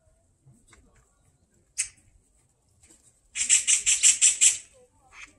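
Oriental magpie chattering: a loud, rapid, harsh rattle of about eight notes, roughly six a second, lasting just over a second, with one short sharp note a little earlier.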